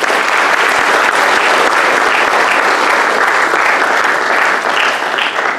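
Audience applause in a lecture hall, loud and steady, tailing off at the very end.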